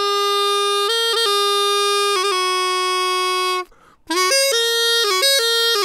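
Reconstructed Etruscan aulos (the Chianciano aulos) played with a higher-pitched double cane reed: a reed-pipe melody, bright and full of overtones. It opens on a long held note with a couple of brief note changes, pauses for a breath a little past the middle, then moves into a run of quicker, slightly higher notes.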